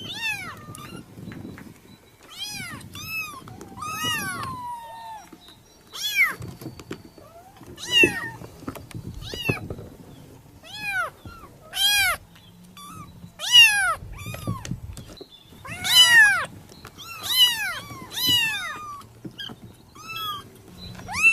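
A kitten meowing over and over: high-pitched mews that rise and fall in pitch, about one every second or so, some much louder than others.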